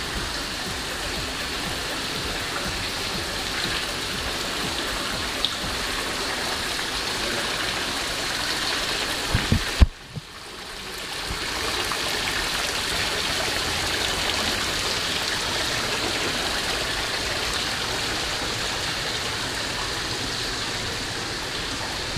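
Steady rush of water running and splashing into an ornamental koi pond. A couple of knocks come about nine and a half seconds in, then the sound cuts out briefly and swells back.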